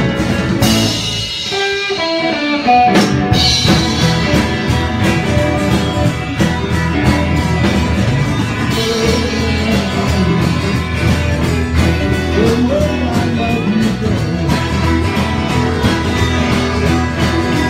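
Live rock band playing, electric guitar over a drum kit. About a second in the drums and low end drop out while a guitar plays a short rising run alone, then the full band crashes back in about three seconds in and carries on.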